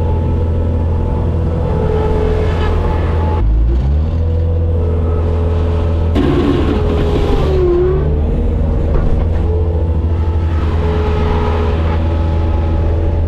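Bobcat skid steer's diesel engine running steadily with a hydraulic whine that comes and goes as the loader works. The engine note dips and picks back up twice, about three and a half seconds in and again around seven to eight seconds.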